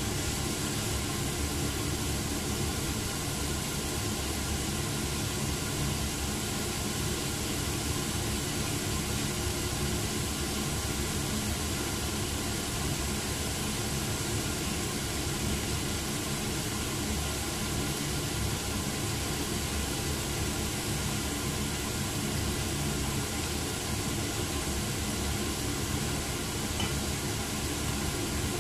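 Strips of meat frying in hot oil in a nonstick pan, a steady sizzle, with a steady low hum underneath.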